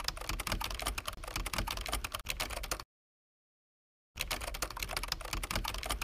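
Computer keyboard typing sound effect: rapid, dense key clicks that accompany text typed out on screen. The clicks cut off abruptly about halfway through, leaving dead silence for over a second, then resume.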